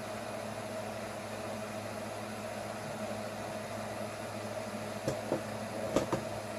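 Steady low hum of room noise, like a fan or air conditioner running, with a few short faint clicks near the end.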